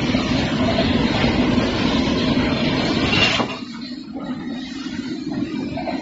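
PVC tape shrink-wrap packing machine running: a steady whirring noise with a low hum. It drops sharply to a quieter level about three and a half seconds in.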